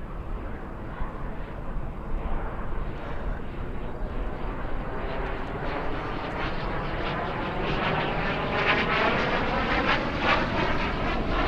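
Canadian Forces Snowbirds' CT-114 Tutor jets in flight, their single turbojet engines making a steady rushing sound. It grows louder from about halfway through as the jets come closer, and its tone sweeps up and down.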